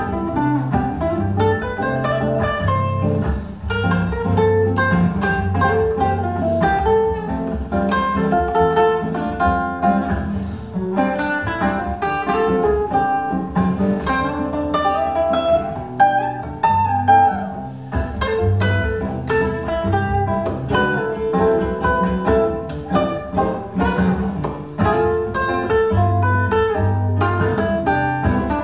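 Solo nylon-string classical guitar playing an instrumental bossa nova break: a plucked melody line over syncopated bass notes and chords.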